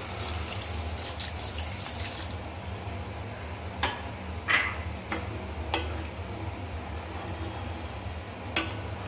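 Water poured from a glass into a pan of gravy for about two and a half seconds, then a few light clinks and knocks. A steady low hum runs underneath.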